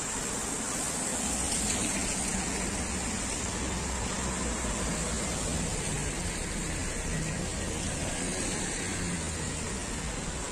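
Street traffic on a wet road: a steady hiss of tyres on wet asphalt mixed with the running of passing cars and a motor scooter.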